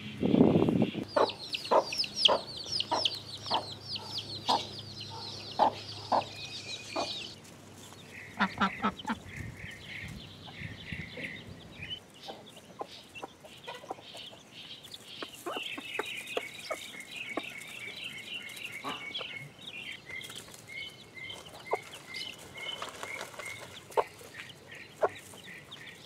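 Baby chicks cheeping: a dense run of high peeps for the first several seconds, then sparser chirps and trills, mixed with short clucks.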